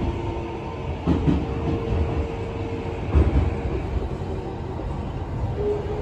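Tokyo Metro 15000 series subway train running, heard from inside the car: a steady low rumble with a couple of thumps from rail joints and a steady whine. Near the end the whine of the Mitsubishi IGBT VVVF traction system rises in pitch as the train picks up speed.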